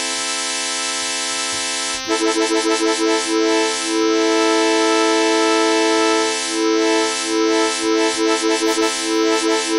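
Synclavier Regen synthesizer holding a chord built from a looping sequence of three simple additive waves (triangle, ramp, impulse). About two seconds in, the steady chord starts pulsing in a rapid, uneven stutter, LFO-like, with a few held stretches, as the mod wheel varies the frame speed.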